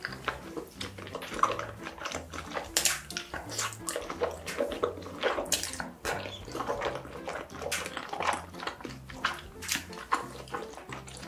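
Close-up wet eating sounds: chewing and mouth smacking on sticky, sauce-glazed food, a rapid run of short squelching clicks.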